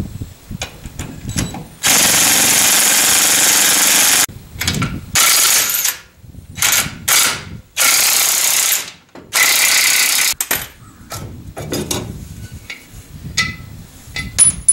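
Impact wrench hammering in five bursts, the longest about two seconds, working bolts out of the car's front brake assembly. Small knocks and clicks of tool handling fall between and after the bursts.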